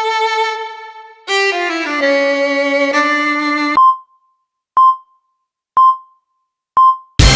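Sound-effect sequence: a held violin-like note that sags slightly, then a short run of notes stepping downward, ending low and cut off sharply. Then four short beeps about a second apart, like a countdown, and a loud sudden burst right at the end.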